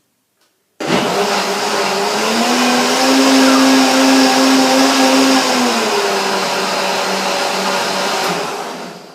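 Blender running, blending a carrot, pear and apple soup that has just been thinned with more water. It starts suddenly about a second in, its pitch rises a little about two seconds in and settles lower again around six seconds, and it winds down near the end.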